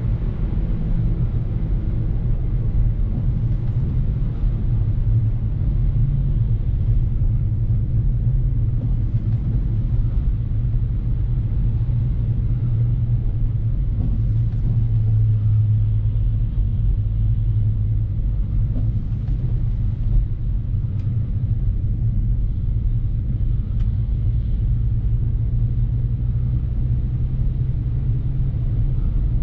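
BMW F30 335i driving along a snowy road: its N55 turbocharged inline-six and the tyres make a steady low drone whose pitch drifts slightly as speed changes.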